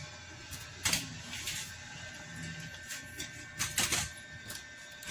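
Hard plastic motorcycle fender parts knocking and clicking as the fender is handled and pushed into place. There is a sharp knock about a second in and a quick cluster of knocks near four seconds.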